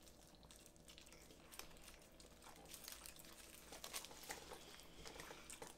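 Near silence broken by faint, scattered rustles of aluminium foil and soft chewing as foil-wrapped burritos are eaten.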